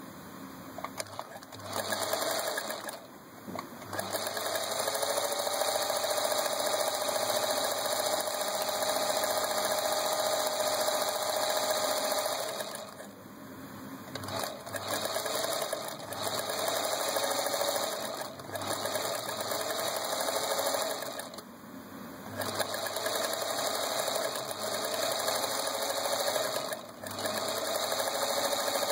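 Singer 221 Featherweight sewing machine running in bursts of free-motion stitching with a darning foot, stopping briefly several times. Its pitch rises as it gathers speed after each pause.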